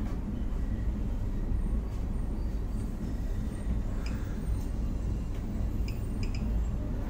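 Steady low rumble and hum of background noise, with a few faint clicks about four and six seconds in.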